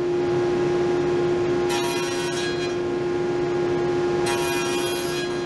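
Table saw with a dado stack running with a steady hum, twice cutting into poplar leg blanks, about two seconds in and again near the end, each a short hissing cut of under a second. These are the nibbling passes that clear a half-lap joint.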